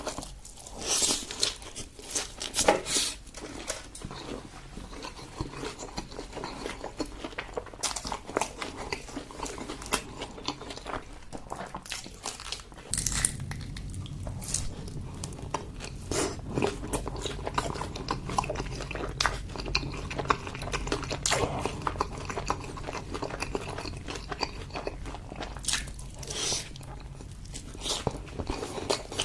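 Close-miked eating: a person biting and chewing food with wet, irregular mouth clicks and smacks. A low steady hum comes in about halfway through.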